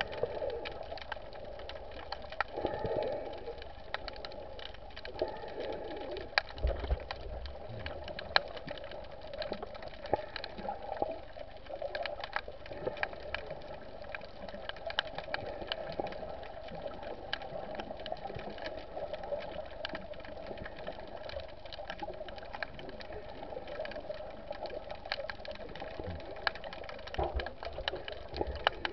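Underwater ambience picked up by a submerged camera: a steady muffled hum with many scattered sharp clicks throughout, and a few low thumps.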